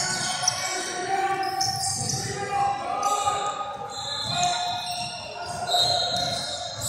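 A basketball dribbling on a hardwood gym floor, with sneakers squeaking as players run and indistinct players' voices echoing in the large hall.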